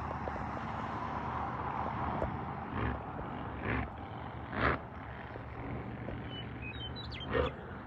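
Wind blowing across the microphone, with a few gusts buffeting it in short loud puffs; a few brief high chirps come just before the last gust.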